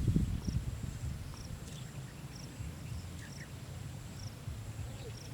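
An insect chirping in a rice field, a short high pulse repeating about once a second, over a low rumbling background noise.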